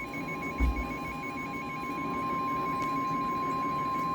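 NOAA Weather Radio warning alarm tone: a steady single tone near 1,000 Hz, signalling that a warning such as a severe thunderstorm warning follows. It is heard over a radio receiver's hum and hiss, with a brief low thump about half a second in.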